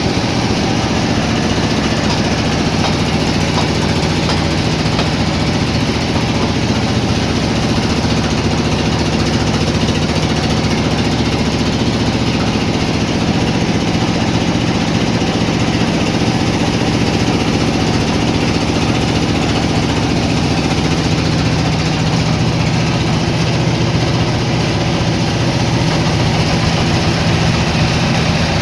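Sawmill machinery running steadily: a continuous loud engine-like drone with a low hum, which gets a little heavier about two-thirds of the way through.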